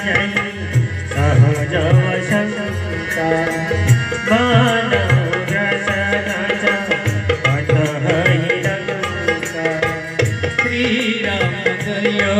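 Tabla and harmonium playing an instrumental interlude in a bhajan. The tabla keeps a steady rhythm with deep bass-drum strokes, under the harmonium's sustained melody.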